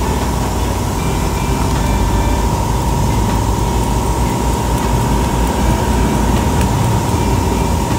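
A machine running steadily: a low rumble with a constant high whine over it.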